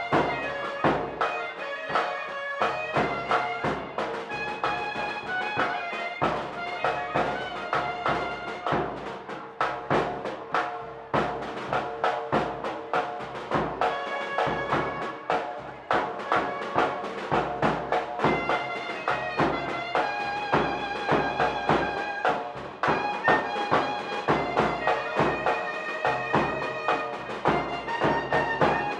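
Traditional Manipuri festival music: a reedy, droning melody over a steady held note, with quick regular drum strokes throughout.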